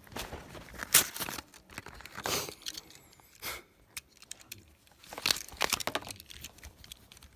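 Packaging of a Matchbox die-cast toy car being torn and handled to free the car: irregular rustling, crinkling and tearing in several short bursts.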